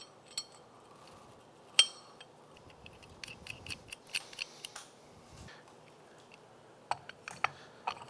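Scattered light metallic clinks and taps as a 33-tooth rear sprocket is set over the studs of a dirt bike's sprocket carrier and the mounting nuts are started by hand. One sharper clink comes about two seconds in, then a run of small clicks in the middle.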